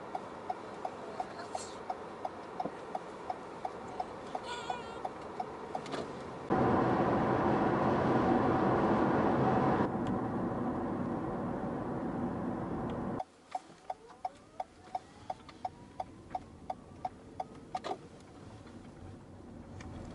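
A car's turn-signal indicator ticking steadily, about two to three clicks a second. For several seconds in the middle, loud steady road and wind noise at highway speed takes over. Then the ticking returns over a rising engine note and stops near the end.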